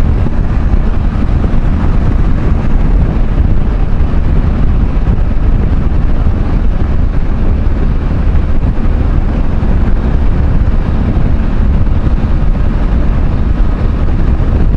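Motorcycle on the move: a steady, loud rush of wind on the microphone over the motorcycle's running engine.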